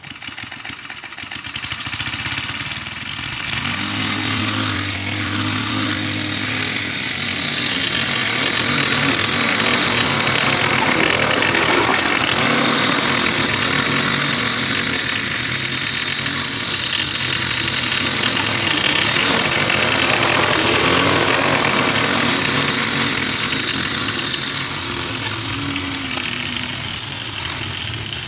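Lawn mower engine running steadily while mowing grass, building up over the first couple of seconds.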